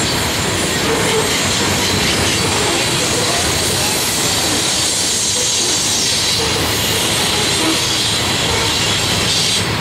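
Freight train of covered hopper cars rolling steadily through a curve, the wheels squealing against the rail over a continuous rumble.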